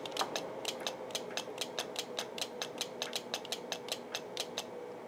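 Icom IC-7300 transceiver clicking rapidly and evenly, about five clicks a second, as it keys up and steps through its SWR-graph sweep of the band, transmitting briefly at each frequency step; a steady faint tone sounds underneath, and the clicking stops shortly before the end.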